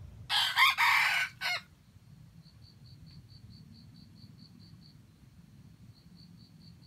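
A red junglefowl rooster crows once, a short, clipped crow of about a second and a half near the start. After it, a faint high insect chirp pulses steadily about five times a second.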